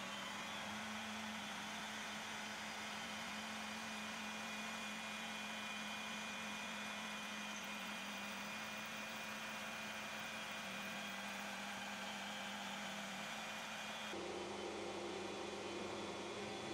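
CNC milling machine running a 6 mm high-speed-steel endmill through thin sheet metal under flood coolant: a steady hum with a faint hiss. The tone shifts slightly near the end.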